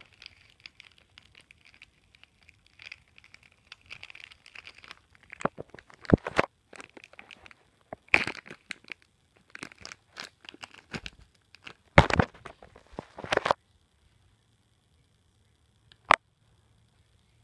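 Clear plastic wrapping crinkling and crackling in irregular bursts as it is handled and pulled off a small clear plastic icosahedron, with a single sharp click near the end.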